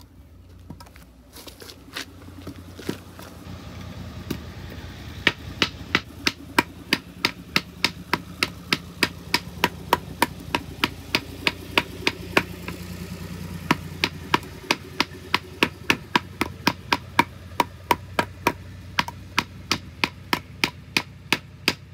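Repeated baton strikes on a ceramic knife blade being driven through wood, a sharp knock at first sparse, then about two to three times a second from about five seconds in. A tractor engine runs in the background, its hum swelling through the middle.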